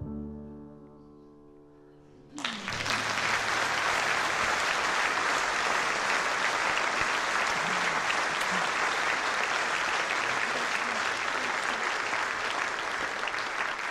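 The last chord of the piano and voices fades out. About two and a half seconds in, a theatre audience starts applauding and keeps up steady applause, which begins to thin near the end.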